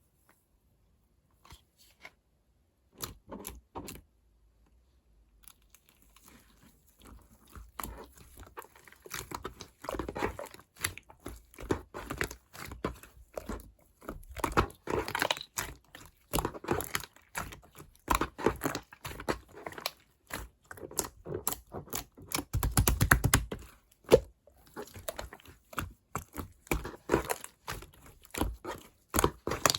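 Slime being scooped and squeezed by hand, giving crunchy crackles and pops: a few scattered clicks at first, then a dense run from about a quarter of the way in. A louder, fuller squish comes about three quarters through.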